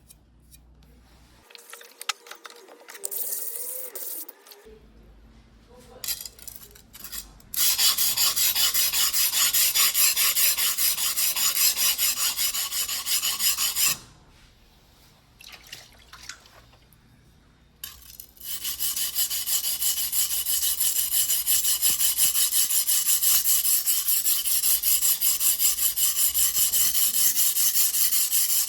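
A white #2 steel yanagiba blade is rubbed back and forth on a wet whetstone by hand, in fast, even scraping strokes. It goes in two long runs with a pause between them, after a few seconds of light handling noises.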